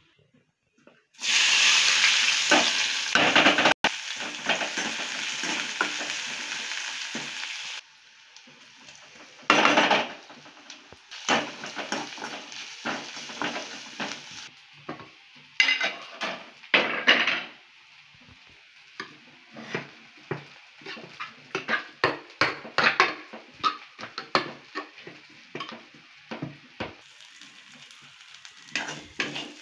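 Sliced onions sizzling in hot oil in an aluminium kadai, loud from about a second in and quieter after several seconds. Then a metal ladle stirs and scrapes the pan with many quick clicks and taps over the frying.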